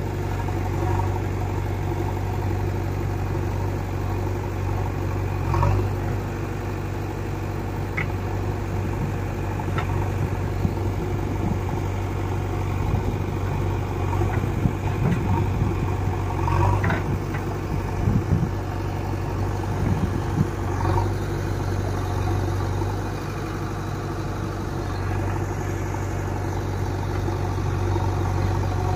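A diesel engine running steadily at a low, even pitch, with several brief knocks and clanks through it.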